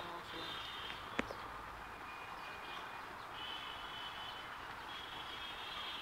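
Steady outdoor background noise, a low traffic-like hum with faint high steady tones over it, and one sharp click a little over a second in. The wrestling dogs make no clear growl or bark.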